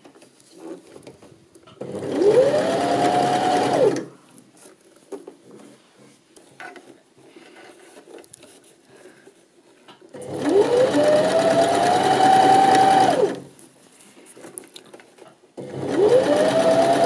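Janome 725s electric sewing machine stitching a knit cuff seam in three short runs. Each run starts with a rising whine as the motor speeds up, holds steady for two to three seconds, then winds down as it stops. Between runs there are faint handling ticks while the fabric is repositioned.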